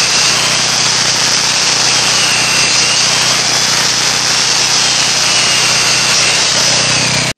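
Handheld circular saw running under load as its blade cuts through a thick wooden timber: a loud, steady whine, its pitch sagging slightly a few times as the blade bites.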